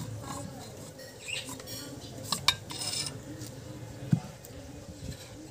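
Metal clinks and scrapes from a Hyundai Getz steering rack being handled, its steel rack bar knocking against the rack housing. Sharper clinks come about two and a half seconds in and again about four seconds in.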